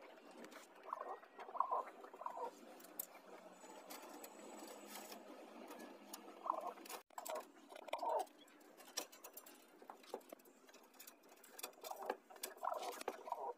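Faint scratching and clicking of thin binding wire being twisted by hand around bamboo poles and a metal mesh grille. Short squeaks come every second or two.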